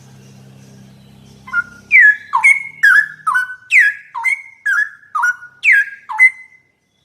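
Straw-headed bulbul (cucak rowo) singing a loud phrase of rich whistled notes, each sliding downward, about two a second. The song starts about a second and a half in, after a faint low hum.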